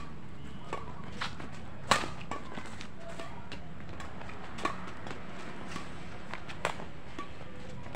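Badminton rackets striking a shuttlecock in a rally: sharp, short cracks a second or two apart, the loudest about two seconds in, over a steady low rumble.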